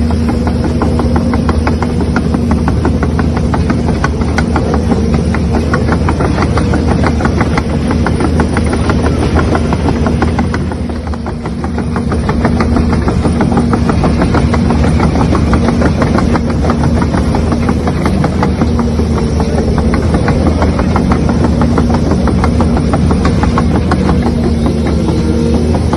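RC excavator running with a steady engine-like sound: a constant hum with a rapid, even rattle. It dips briefly about eleven seconds in, then carries on as before.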